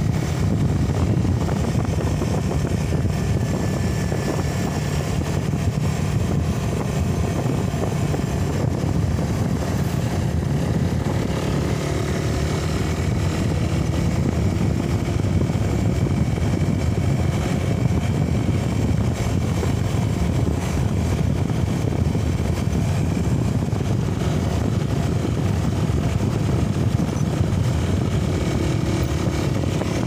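Motorcycle engine running steadily at cruising speed, mixed with wind noise rushing over the handlebar-mounted microphone.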